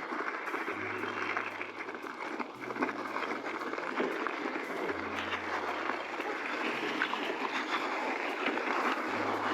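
Hardtail mountain e-bike tyres rolling over loose shingle: a steady crunching rustle with scattered small stone clicks.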